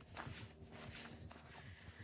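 Faint footsteps of a hiker walking on a trail.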